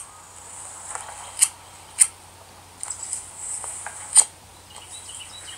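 A few sharp clicks, three of them louder, over a steady high-pitched buzz.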